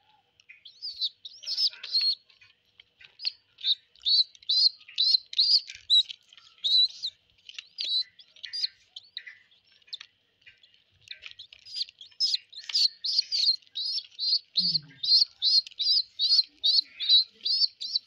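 Baby pigeons (squabs) peeping in short, high cheeps, about two to three a second, begging while being hand-fed seed. There is a lull about halfway through, then the cheeping runs on steadily.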